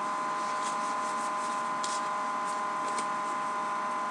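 Trading cards softly swishing as they are slid through the hands, a few faint brushes over a steady electrical hum.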